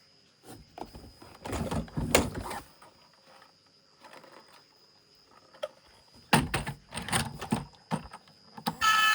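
Handling noise: short knocks, clatter and rustling of objects being handled, in two bouts a few seconds apart, over a faint steady high whine. Music starts just before the end.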